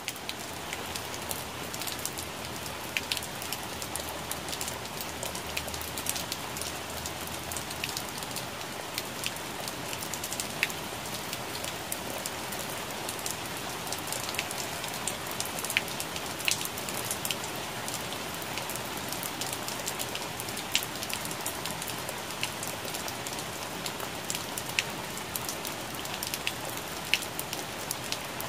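Rain falling on plant leaves: a steady patter, with many sharp single drop hits standing out from it.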